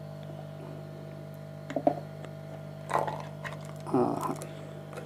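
Flat-blade screwdriver prying the glued lid off a sealed metal module case: a few short scrapes and creaks as the lid breaks free of its sealant, the longest about four seconds in as the lid comes up. A steady electrical hum runs underneath.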